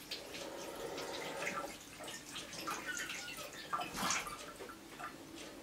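Water running and splashing at a sink as grapes are washed, with irregular small drips and splashes and one louder splash about four seconds in.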